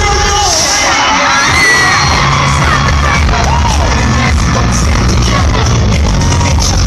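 Loud live K-pop played over a concert sound system, with the crowd screaming and cheering. The bass drops out briefly about half a second in, then the beat comes back, with a bang from confetti cannons firing.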